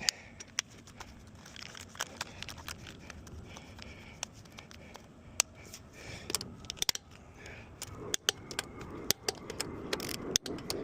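Irregular sharp metal clicks and light scraping of a hand wrench at work on a wheel's lug nuts, as the wheel is torqued down.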